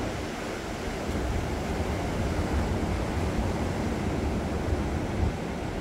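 Wind gusting across the microphone, with ocean surf rushing steadily underneath.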